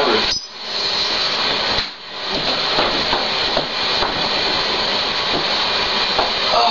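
Steady, fairly loud hiss of a camcorder's microphone noise, with a few faint knocks and shuffles. The level dips sharply twice, about half a second in and again about two seconds in.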